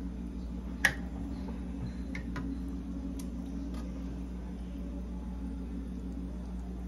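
Kitchenware clinking while caldo verde is served: one sharp clink about a second in, then a few faint clicks, over a steady low mechanical hum.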